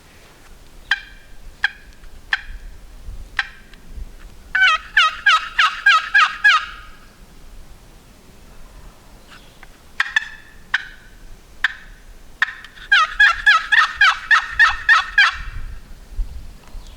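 Turkey calling, heard twice: four sharp single notes spaced about half a second to a second apart, then a quick run of about eight notes lasting some two seconds.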